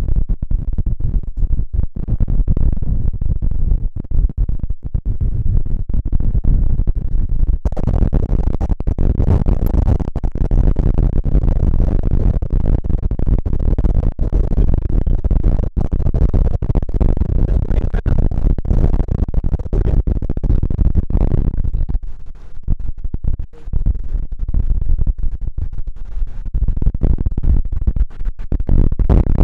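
Strong storm wind buffeting the microphone: a heavy, gusting low rumble. About eight seconds in it turns harsher and fuller, then eases again about three-quarters of the way through.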